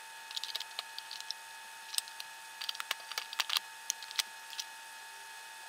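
Faint, irregular clicks and taps of converter cards being pushed into the slots of a Theatrixx 8-bay reversible frame and snapping against its magnetic locking strip. They come in small clusters through the first four and a half seconds or so.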